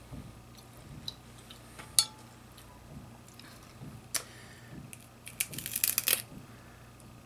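Snow crab leg shells being cracked and handled: scattered sharp snaps and clicks, one loud snap about two seconds in, and a quick flurry of crackling near the end.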